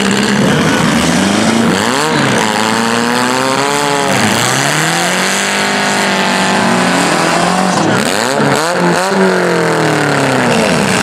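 Engines of several compact demolition-derby cars revving, their pitch rising and falling over and over as they run at once, with a few knocks about eight to nine seconds in.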